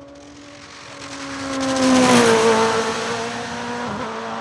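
Hillclimb race car passing at speed under steady throttle. Its engine note builds to a peak about two seconds in, then drops in pitch as it goes by and carries on away at a lower steady note.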